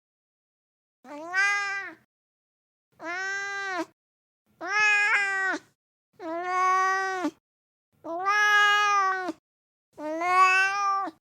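Siamese cat meowing unhappily: six drawn-out meows, each about a second long, with pauses of about a second between them.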